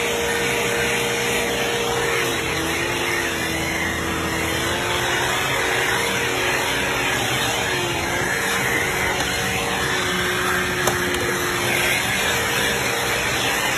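Bissell PowerForce Helix Turbo upright vacuum cleaner running steadily while vacuuming carpet. Its motor tone dips lower for stretches in the middle, and there is one sharp click late on.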